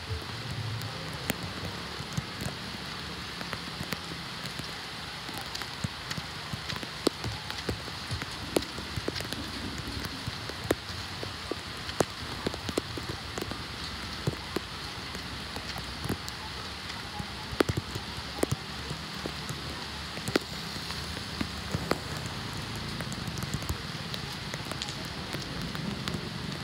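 Water on a flooded street, a steady wash of noise with many sharp ticks and drips scattered throughout.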